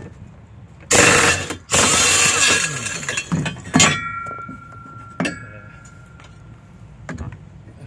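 Air impact wrench hammering twice at the nut of a top-load washing machine's large drive pulley, two bursts of about a second each, with no sign of the nut coming off. Just after them comes a sharp metal clink that rings on for a couple of seconds.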